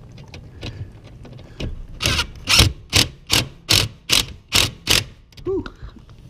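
A screwdriver being turned by hand at a dishwasher's mounting bracket, making a run of about eight short rasping strokes, two to three a second. A brief vocal sound follows near the end.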